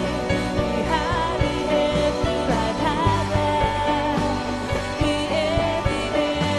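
Worship song: singing over band accompaniment with a steady beat.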